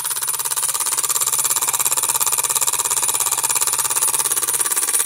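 Bowman E135 live steam engine running under steam with a fast, even chugging beat, its cylinder exhaust and gear-reduction drive ticking over steadily. The sound grows louder during the first second and then holds steady.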